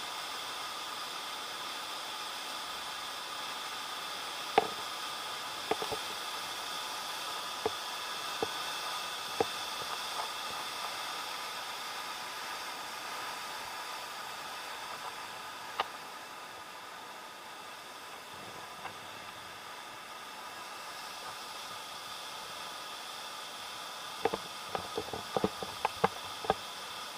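Steady rushing noise of a waterfall and rapids, with scattered sharp clicks, several in quick succession near the end.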